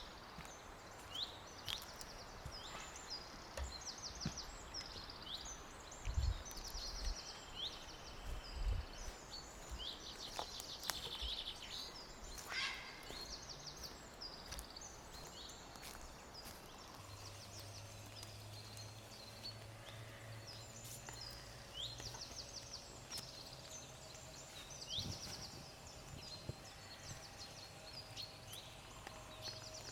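Small forest birds singing, with many repeated high chirps and short trills. Two dull low thumps come about six and nine seconds in, and a faint low hum joins in the second half.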